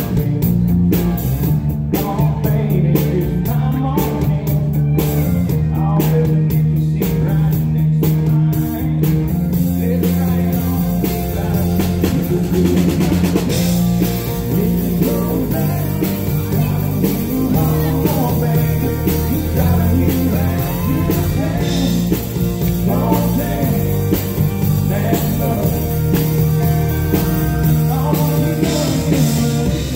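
Live country band music: a male singer with acoustic guitar over electric bass and drums. Sharp drum hits stand out in the first several seconds, and the singing is more prominent after that.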